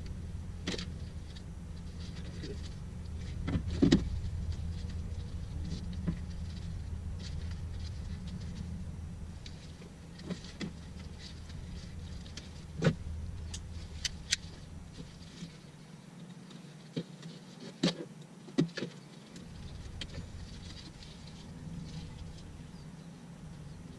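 Scattered clicks, taps and knocks of hand work on a car's fuel pump wiring, a few sharper ones about 4, 13 and 18 seconds in, over a low steady hum that fades out a little past the middle.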